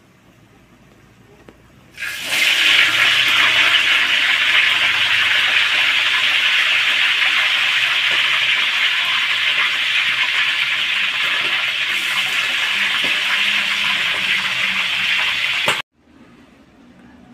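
Hot oil in a wok sizzling loudly as pieces of boiled, still-wet chicken go in to fry. It is a steady hiss that starts suddenly about two seconds in and stops abruptly near the end.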